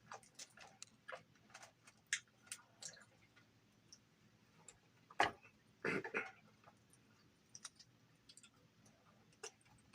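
Close-up eating sounds: scattered small clicks and crunches of someone chewing crispy fried chicken, with one sharper crack about five seconds in and a brief denser noise a second later.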